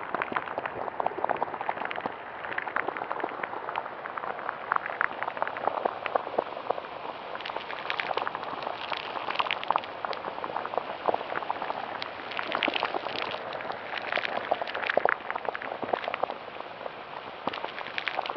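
Designed dark sound effect of dense bubbling and crackling, like liquid at a boil: many small pops and crackles over a steady hiss, with no break.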